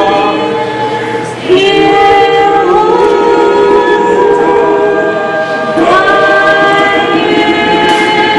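Choir singing a cappella in long held notes, with new phrases starting about one and a half seconds in and again near six seconds.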